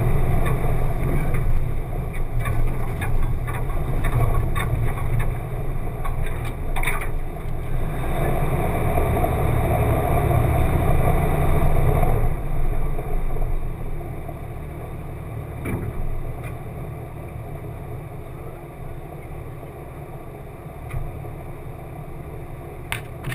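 A 1995 Jeep Wrangler YJ driving a rough dirt trail: engine and drivetrain running, muffled through a waterproof camera housing, with scattered knocks. It is loudest in the first half, then drops off about halfway through to a quieter steady run.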